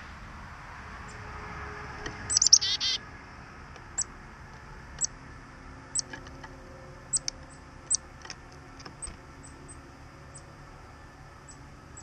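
Small songbirds calling: a quick burst of rapid high chattering notes about two seconds in, then short, high chips roughly once a second.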